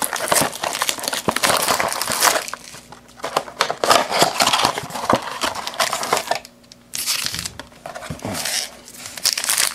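Plastic wrapping crinkling and tearing as a trading-card blaster box is opened, with a short pause about two-thirds of the way through.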